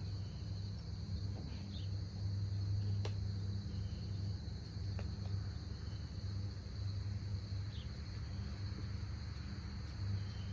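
Steady chorus of insects chirring, a constant high-pitched drone, over a low steady hum, with a faint click about three seconds in.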